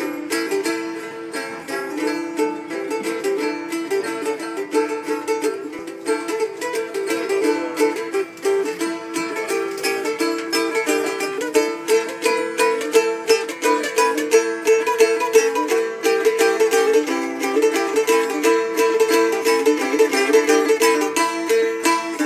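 Phin, the Thai Isan plucked lute, playing a fast, busy melody of quickly picked notes without a break.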